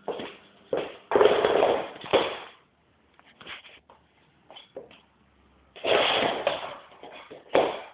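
A chew bone clattering and skidding across a tiled floor as a Labrador puppy pushes it along, in two long rattling bursts about a second in and again near six seconds, with scattered short knocks between.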